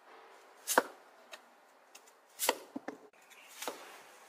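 Chinese cleaver slicing a peeled potato into thick rounds on a wooden cutting board: three separate cuts, each ending in a knock of the blade on the board, with a few lighter taps in between.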